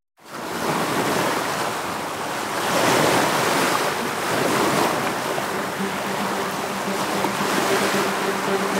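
Rough sea surf with wind: waves breaking and washing in a steady rush that swells about three seconds in and again a couple of seconds later.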